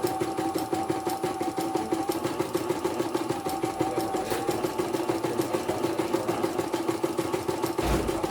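A CNY portable computerized embroidery machine stitching at speed: a steady motor hum with a fast, even run of needle strokes, and a higher whine from the hoop drive that comes and goes. A brief low thump comes near the end.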